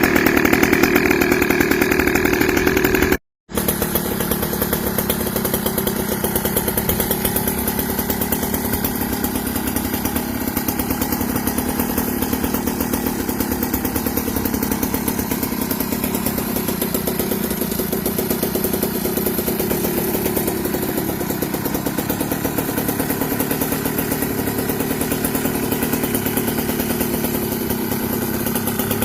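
Goped's small two-stroke engine running through an aftermarket expansion pipe, revving high at first. It cuts out for a moment about three seconds in, then runs steadily at a lower pitch, near idle, with small rises and falls.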